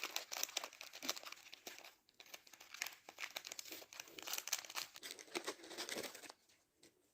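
A pet parrot picking at and chewing something dry and crackly: a rapid, irregular crinkling and crunching that stops about six seconds in.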